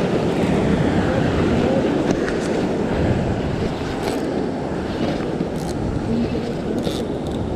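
Wind buffeting the microphone over the steady wash of surf breaking against the rocks.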